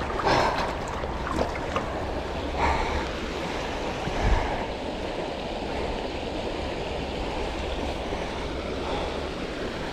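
Creek water running steadily over rocks in a shallow riffle. A few brief louder noises come in the first half, with a dull thump about four seconds in.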